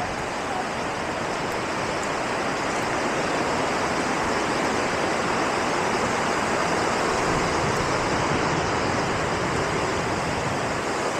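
Steady rush of fast-flowing water, a continuous even roar without breaks.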